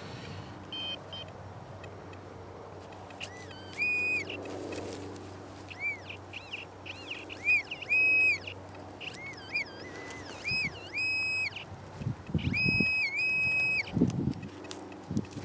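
Handheld metal-detecting pinpointer beeping as it is probed through loose field soil: a string of electronic tones that glide up and down as the tip nears and leaves the target, some held steady for about half a second. The target turns out to be a piece of foil. Soil crunches and rustles as it is scraped and handled near the end.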